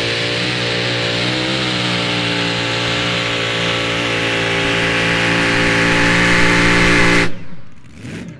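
Mini Modified pulling tractor's engine running steadily under load, its pitch and loudness slowly rising, then cutting off abruptly about seven seconds in.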